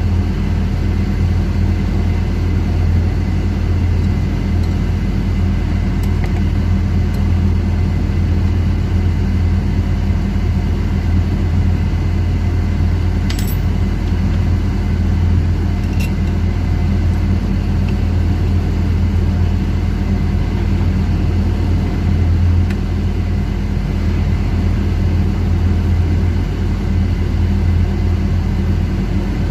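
Steady, loud low machinery drone, with a few light metallic clinks, the clearest about thirteen seconds in.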